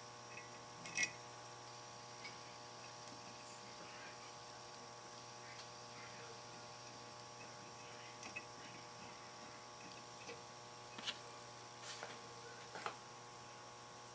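A few faint clicks and taps of small bolts being handled and hand-threaded into a painted casting, the sharpest about a second in and more near the end, over a steady electrical hum.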